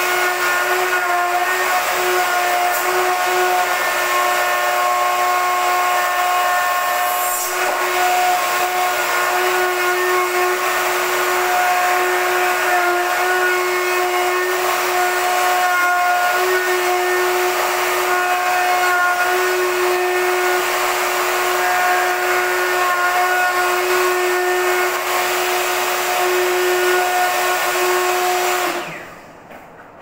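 Electric plunge router running at full speed with a steady high whine as it cuts a recess into a wooden door for a door lock. The whine stops near the end as the router is switched off.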